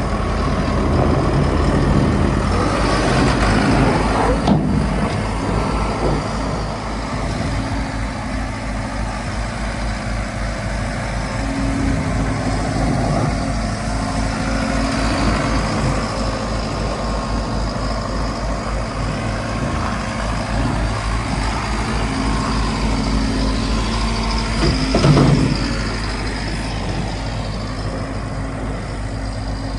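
Volvo MC115C skid steer's diesel engine running and working under varying load while moving snow. A single loud knock or clank comes about 25 seconds in.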